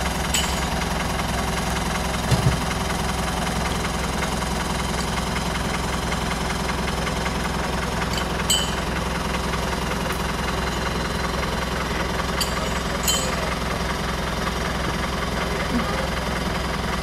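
Off-road 4x4's engine idling steadily, with a few short sharp clicks and knocks on top.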